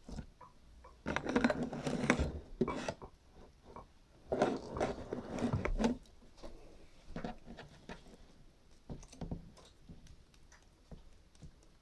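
Homemade slime being squeezed and worked by hand: wet, crackly clicking and popping in two longer stretches with scattered smaller clicks between.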